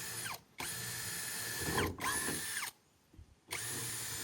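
Handheld electric power tool, likely a drill, run in short trigger bursts. Each burst holds a steady whine and ends in a falling whine as the motor spins down. There are about four bursts, with a longer pause a little after the middle.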